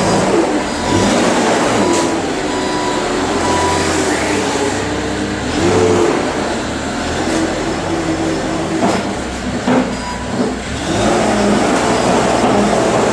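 An earthmoving demolition machine's engine running under load, revving up and down as it works. A few sharp knocks are heard, about two seconds in and again near ten seconds.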